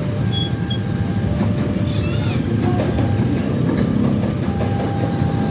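KRL commuter electric train rolling through a level crossing, its wheels rumbling steadily on the rails, over a bed of idling motorcycle engines.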